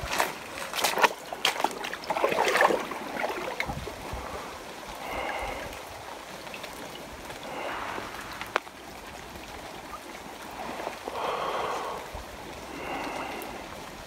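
Shallow woodland stream gurgling and trickling, coming and going in bubbling spells every couple of seconds. A few sharp clicks sound in the first few seconds.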